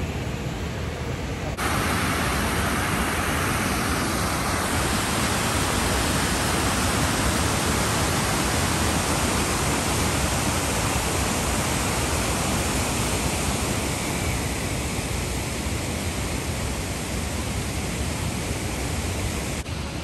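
Low Force, a waterfall on the River Tees: a steady rush of falling water, stepping up in loudness about a second and a half in.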